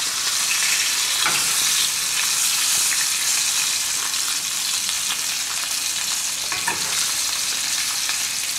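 Whole chicken sizzling steadily as it browns in hot olive oil in a stainless steel sauté pan, with fine crackling and a couple of light clicks from the metal slotted spoon turning it.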